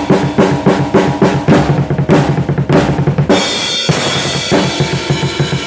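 Acoustic drum kit played hard with sticks: fast, dense strokes on the drums and bass drum. A little past halfway a cymbal crashes, and its ringing wash carries on under the beat when the strokes pick up again.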